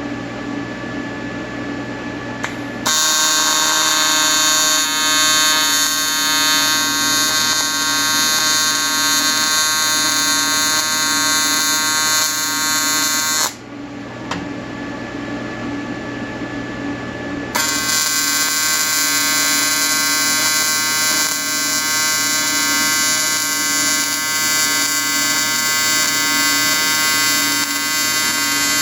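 Electric welding arc buzzing loudly in two long beads: one starts about three seconds in, cuts off about ten seconds later, and after a short pause with only the welder's lower hum, a second starts and keeps going.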